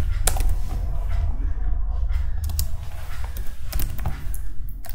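Computer keyboard being typed on: a handful of separate, unevenly spaced key clicks over a steady low hum.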